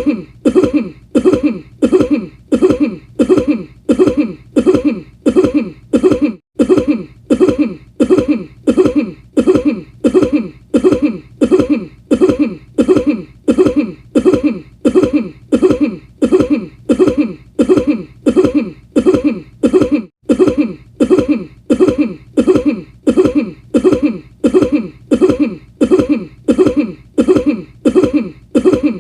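A person's short cough repeated over and over at an even pace, about three coughs every two seconds, the same cough looped.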